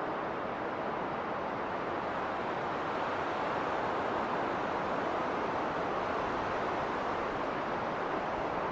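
Winter wind blowing during a snowstorm, an even rushing noise that swells slightly a few seconds in.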